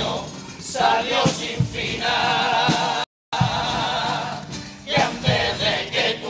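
Carnival murga chorus singing a pasodoble in harmony, with guitar accompaniment and regular low beats. The sound drops out completely for a fraction of a second about three seconds in.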